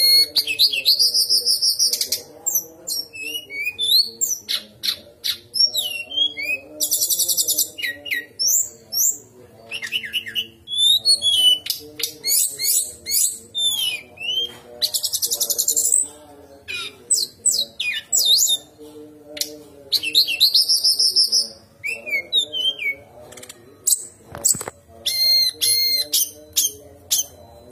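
Brown-chested jungle flycatcher singing a long, varied song of rapid trills, high whistled phrases and short sharp notes, with brief pauses between phrases.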